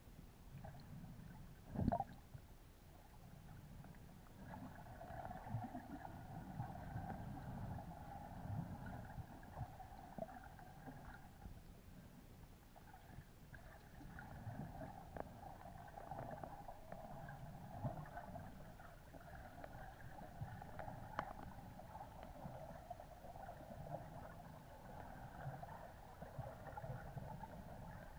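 Muffled underwater water noise picked up by a camera in a waterproof housing while snorkelling: a low rumble and slosh that swells and fades, with small ticks throughout and one loud knock about two seconds in.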